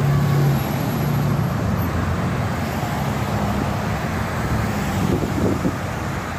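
Road traffic: cars and SUVs driving past close by on a multi-lane road, a steady noise of engines and tyres on asphalt.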